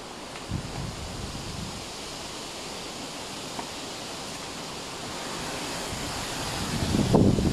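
Wind blowing over the microphone: a steady rushing noise with low rumbling gusts that build and grow strongest near the end.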